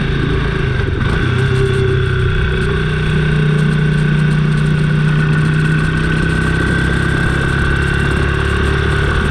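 Kawasaki Estrella's single-cylinder motorcycle engine running at a steady pace, its note stepping up and down in pitch a few times.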